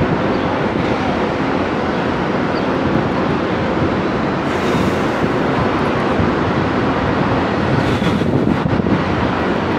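Steady wind noise buffeting the microphone, with a faint steady hum underneath.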